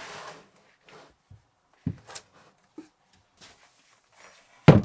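Heavy batteries being shifted and set down: a few light knocks and clicks, then one loud thud near the end.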